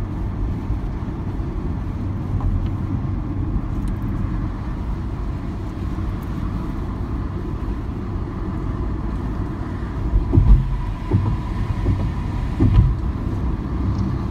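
Steady road and engine noise of a car at highway speed, heard from inside the cabin. A few low thumps come about ten to thirteen seconds in.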